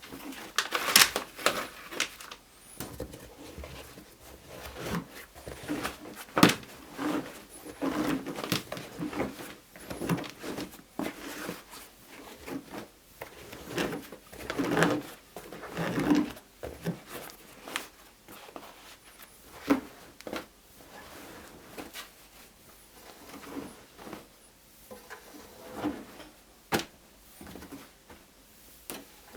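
Irregular knocks and clicks mixed with softer thuds, at no steady rhythm, busiest in the first half and sparser toward the end.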